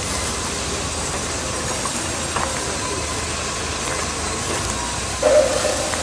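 Steady noisy din of band-saw resaw machines running as planks are sawn, with a faint thin whine through the middle and a brief louder rise just past five seconds in.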